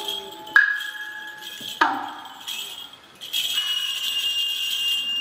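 Sparse shamisen plucks: two sharp struck notes, about a second apart, each ringing on and fading, as accompaniment to a jōruri puppet play. About three seconds in, a steady high ringing hum takes over.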